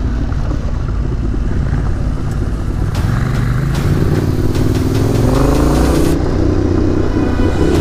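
Yamaha Ténéré 700's parallel-twin engine under way, accelerating with its pitch rising from about three seconds in.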